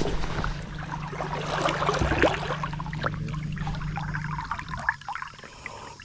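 Water splashing and trickling against a small boat's hull as a juvenile tarpon is held in the water alongside, with a steady low hum underneath that stops about four and a half seconds in.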